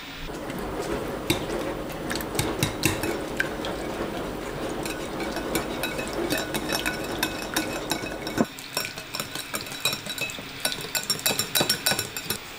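A hand whisk beating ricotta, milk and egg yolk in a glass bowl: a steady wet churning with clinks of the wires against the glass. Over the last few seconds the clinks come quick and sharp, about five a second.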